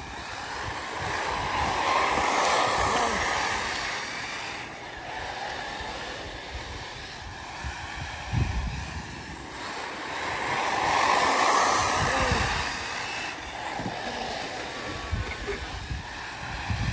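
Brushless electric Arrma Typhon 6S RC buggies running on a dirt track, their noise swelling twice as they pass close by.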